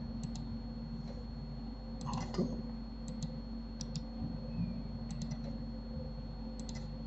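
Computer mouse clicking, a few quick click pairs (press and release) every second or so, over a steady low hum.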